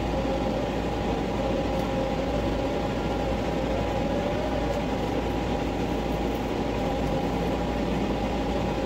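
A fan running steadily: an even whir with two held humming tones in it, the lower one wavering slightly.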